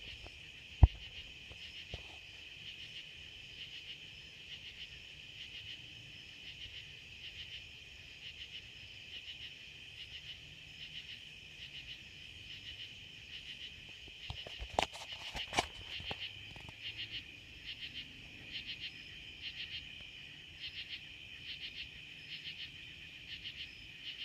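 A steady chorus of night insects, a high shrill band pulsing about twice a second. A sharp click comes about a second in, and a few louder knocks come around the middle.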